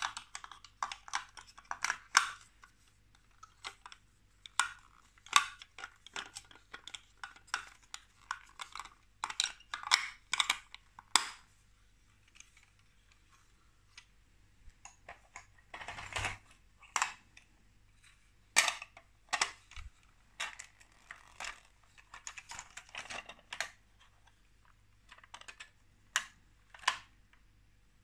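Plastic Lego Duplo bricks and truck parts handled and pressed together: irregular clicks and clatters of hard plastic. There is a quieter pause about halfway, then a louder rattle.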